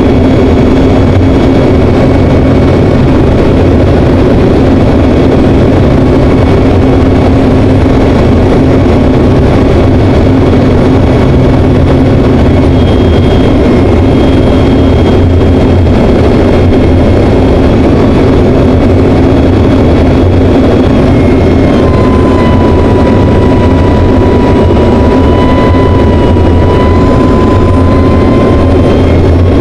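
Propeller aircraft's engine and propeller heard from inside the cockpit in flight: a loud, steady drone. A thin high whine joins it about two-thirds of the way through.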